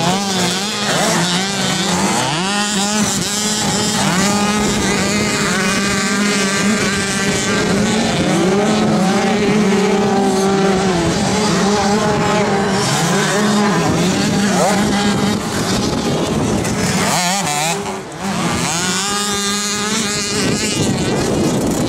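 Several 65cc two-stroke motocross bikes racing together, their engines revving up and dropping back over and over, with the pitches overlapping. The noise eases briefly about four seconds before the end, then picks up again.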